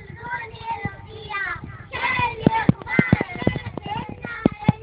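Young girls singing together into microphones, with sharp percussive hits coming quickly from about halfway through.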